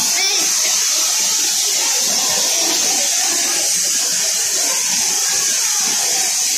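Steady, loud rush of running water in an indoor pool enclosure, an even hiss that does not change, with indistinct background voices underneath.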